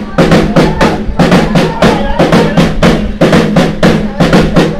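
Music with a fast, steady drumbeat, about five beats a second, over a held low note.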